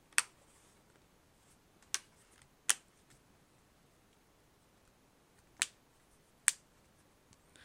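Plastic back cover of a Samsung Galaxy Note 3 being pressed onto the phone, its edge clips snapping into place with five sharp, irregularly spaced clicks.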